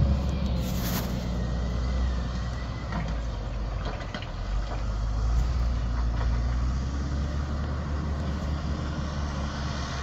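John Deere backhoe loader's diesel engine running as it plows snow, a steady low rumble, heard from a distance.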